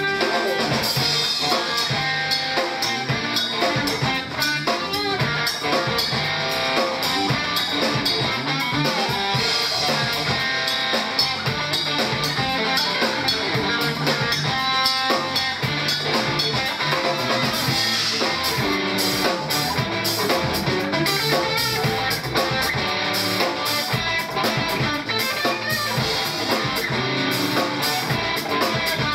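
Live band playing an instrumental passage of a song, with guitar over a steady drum-kit beat.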